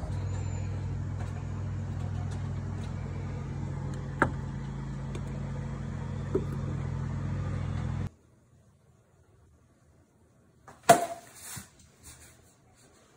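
A steady low hum with a couple of light clicks, cutting off about eight seconds in. Near the end, one sharp crack of a wooden baseball bat hitting a ball off a tee, followed by a few smaller knocks.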